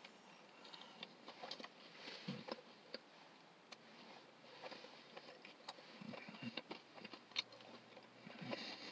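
Faint chewing of a mouthful of chili cheese Fritos wrap, with soft irregular clicks and small crunches from the still slightly crispy corn chips.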